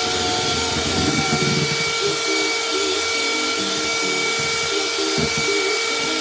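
Electric hand mixer running at a steady speed, its beaters whipping a thick white mixture in a plastic bowl: a constant motor whine over the noise of the beaters.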